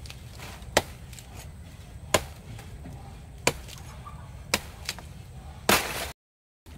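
Machete chopping through thick grass stalks: about six sharp chops, roughly one a second, the last a longer slash. Just after it the sound cuts out completely for half a second.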